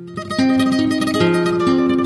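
Flamenco acoustic guitar music: after a brief dip at the start, the guitar plays a run of plucked notes that step up and down over a low bass note.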